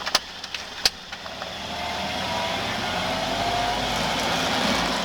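A car driving by, its engine and road noise swelling over a few seconds with a faint, slowly rising whine; two sharp clicks come just before.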